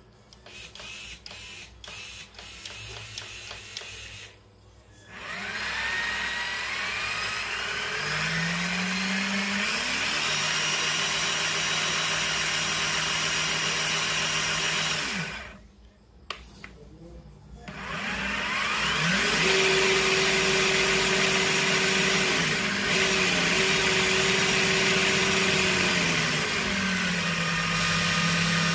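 Traxxas TRX-4's Titan 550 brushed motor driving the freshly greased transmission and portal axles with the wheels off the ground: a test run after portal-axle maintenance. A few clicks at first, then a whine that rises as the drivetrain spins up, holds steady and cuts off about halfway through; it spins up again, holds, and drops to a lower pitch near the end.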